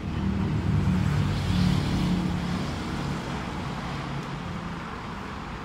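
A motor vehicle's engine running with a low hum, loudest over the first two to three seconds and then dying down.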